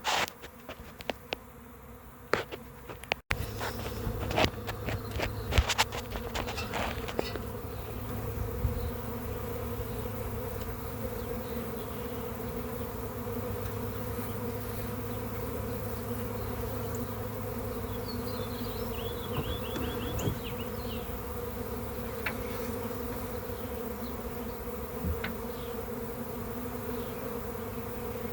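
Swarm of honey bees buzzing in a steady, even hum. Several sharp knocks and bumps sound in the first seven seconds, then the buzzing carries on alone.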